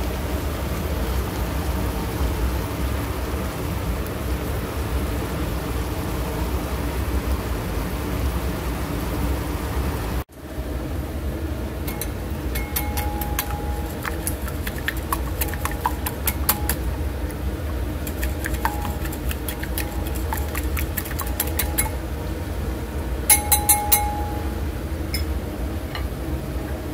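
Vegetables sizzling steadily in an electric skillet. About ten seconds in, the sound cuts and a wire whisk beats eggs in a ceramic bowl. The whisk clinks against the bowl in quick runs, with a few louder ringing taps near the end, over a continuing sizzle.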